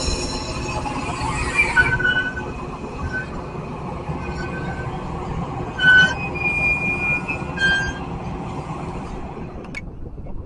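Metra bilevel commuter train's passenger cars rolling past close by: a steady rumble of steel wheels on the rails with short, high metallic squeals on and off, the loudest about six seconds in. Near the end the sound drops suddenly to a much quieter background.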